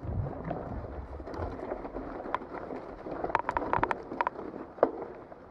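Venzo FX3 mountain bike with a rigid fork riding down a dirt trail: low rumble of tyres and wind on the microphone, then a quick run of rattling clicks from the bike a little past halfway and one sharp knock near the end.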